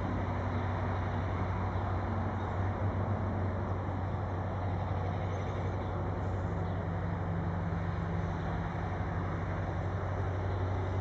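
Diesel locomotive engine running with a steady low drone as it slowly hauls a train of tank wagons.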